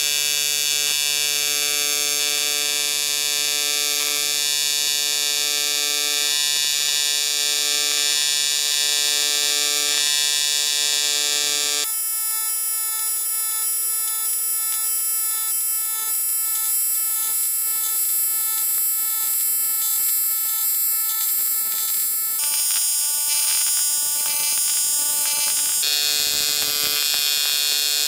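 AC TIG welding arc on thick aluminum buzzing steadily, the Primeweld 225 running at its full 225 amps. The buzz changes in tone abruptly about twelve seconds in and again a couple of times near the end.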